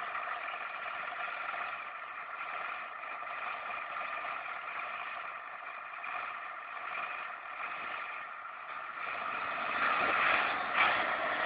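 Several farm tractors' diesel engines running together in a steady drone that grows louder near the end.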